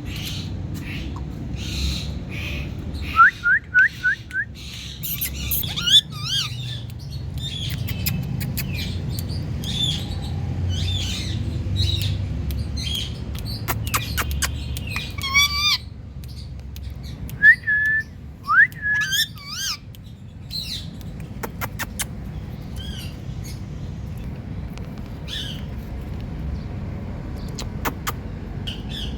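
Indian ringneck parakeet calling: short, sharp chirps and squawks that come in several bursts, including a quick run of rising notes a few seconds in. A steady low rumble runs underneath.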